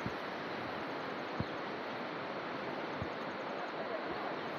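Steady rushing outdoor ambience, wind or nearby river water, with three soft low knocks about a second and a half apart.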